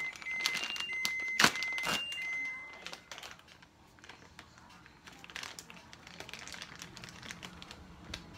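Plastic bag of shredded cheese crinkling, with utensil clicks and light scrapes as cheese is spread over a foil pan, busiest in the first three seconds and sparser after. A few short high beeps sound in the first two and a half seconds.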